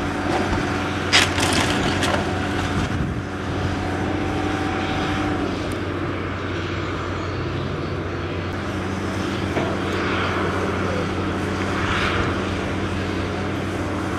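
Diesel engine of a tracked demolition excavator running steadily while its arm works in brick rubble. A sharp clatter of brick and debris comes about a second in, and softer crashes of rubble shifting come later.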